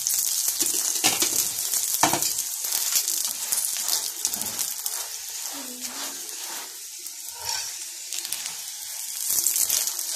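Melted ghee sizzling and crackling on a hot tawa as it is spread over a potato-stuffed paratha with a spoon, with a few light clicks early on. The sizzle dies down in the middle and grows louder again near the end.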